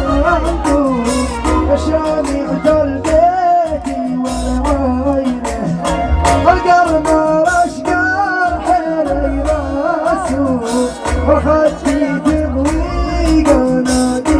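A male voice singing a hejini, the Bedouin Arabic sung-poetry style, in a wavering melodic line over a pulsing bass beat and sharp, clap-like percussion.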